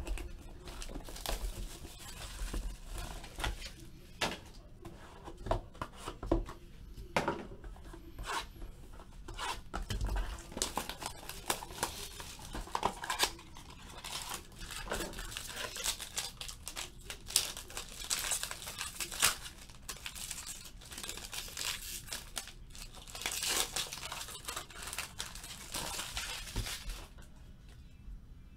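Clear plastic wrap being torn and crinkled off a box and cardboard packs of Topps Triple Threads football cards, with cardboard and cards handled. Irregular crackling and rustling, busiest in the last few seconds before it quietens near the end.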